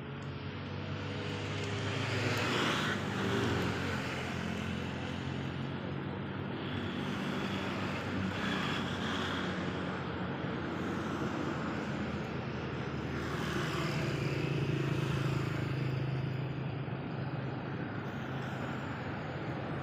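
Motor vehicles passing on a nearby road: engine hum swelling and fading, loudest twice, a few seconds in and again past the middle.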